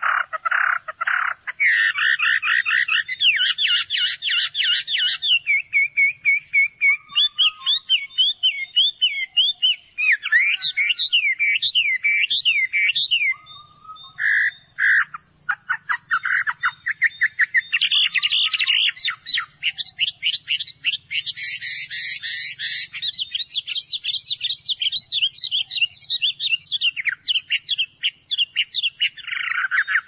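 Songbirds singing: fast trills and quick rising-and-falling whistled notes repeated in rapid runs, with only short pauses.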